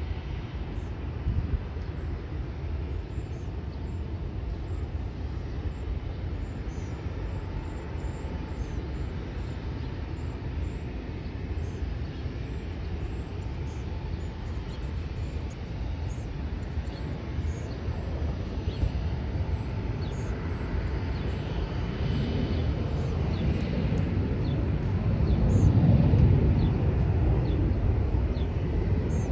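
Jet engines of an Airbus A380 running as the airliner moves along the runway: a steady low rumble that grows louder over the last ten seconds and is loudest near the end.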